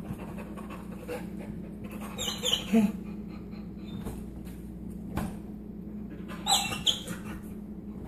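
Soft-coated Wheaten Terrier whining in short, high-pitched bursts, once about two seconds in and again near seven seconds, while it tugs at the fridge rope. A few sharp knocks and a steady low hum lie underneath.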